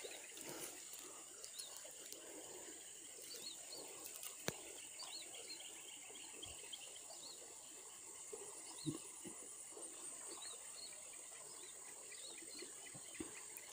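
Faint field ambience: a steady, high insect drone with small, high chirps scattered through it, and a single sharp click about four and a half seconds in.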